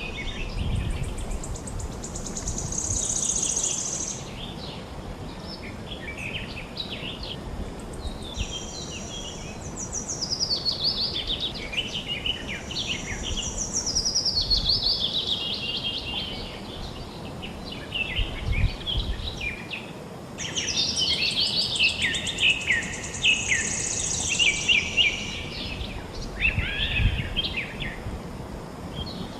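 Several forest songbirds singing and calling over one another, with high trills and quick falling runs of notes, over a steady rush of flowing river water.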